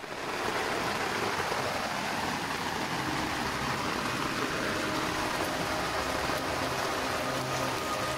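Steady heavy rain, a dense even hiss that starts abruptly, with faint sustained tones joining in about halfway through.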